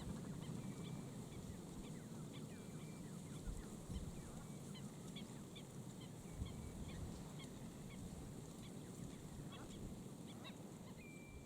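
A glossy ibis flock calling with goose-like honking grunts, among many short chirps and a few thin, level whistles from other birds, over a steady low background rumble.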